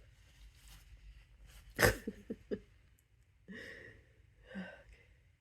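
A loud, harsh human sneeze about two seconds in, induced by prodding inside the nose with a paintbrush, followed by a few short vocal sounds and breaths.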